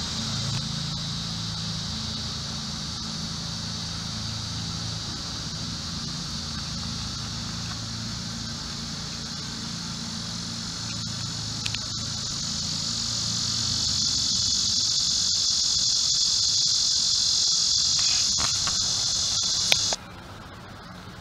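Insects droning in a steady, high, continuous buzz that swells louder about two-thirds of the way in and cuts off suddenly near the end.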